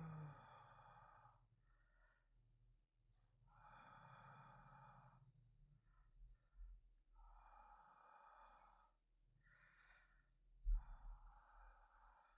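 A sleepy man's slow, heavy breathing close to the microphone: long breaths out about every three to four seconds, with short breaths in between. Near the end a low thump stands out.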